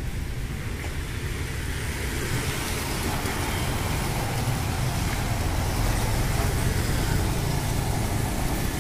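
Street traffic noise: motorcycle and scooter engines running and passing, a steady low rumble.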